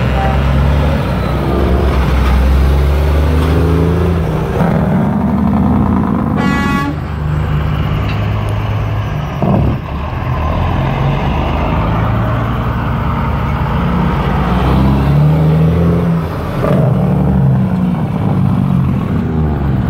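Heavy diesel trucks, a dump truck and a semi tractor, rolling past close by with their engines running, and a short horn toot about six and a half seconds in.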